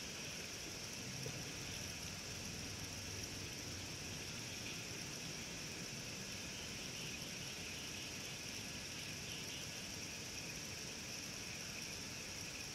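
Steady high-pitched insect chorus that keeps on without a break, its buzz sitting at two or three high pitches.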